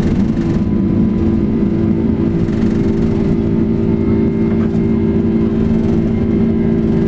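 Boeing 777's jet engines at takeoff power heard inside the cabin as the airliner climbs out after takeoff: a loud, steady rushing noise with several steady hums on top.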